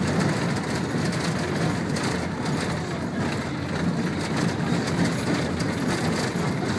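Road noise inside a vehicle's cabin as it drives over a rough dirt road: a steady low rumble of engine and tyres, with frequent small knocks and rattles from the jolting.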